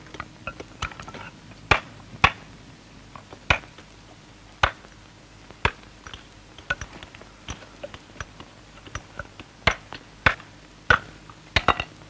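Stone hewer's hammer striking a whetstone slab with its edge, splitting it into thin staves: sharp, irregular clicks and clinks, about ten harder strikes among lighter taps.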